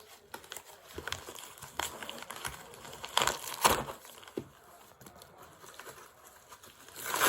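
Packaging crinkling and rustling as a mailed parcel is handled and opened, with a few sharper crackles about three to four seconds in.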